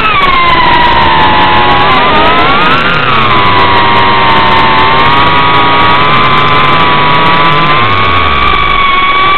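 Reptile Cloud 149 V2 FPV quadcopter's brushless motors and propellers whining loudly, heard from the camera mounted on the drone. The pitch rises and falls with the throttle, climbing to a peak about three seconds in and then holding fairly steady.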